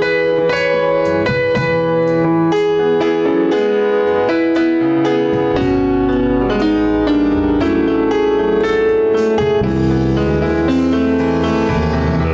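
Electronic keyboard played with a piano sound: slow chords and a melody struck note by note, with deep bass notes coming in about halfway.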